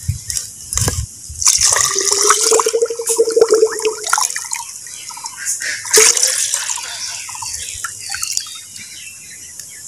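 Water being poured and splashed into a hollow green bamboo tube, busiest in the first half, with one sharp splash about six seconds in and quieter dribbling after.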